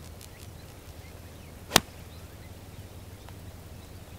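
A golf club striking a ball played out of a divot on grass: one sharp crack a little under two seconds in, the ball caught really flush.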